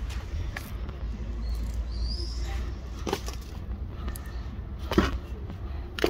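Rumble of a phone being moved about, with a few sharp clicks and a single short, high, rising squeak about two seconds in.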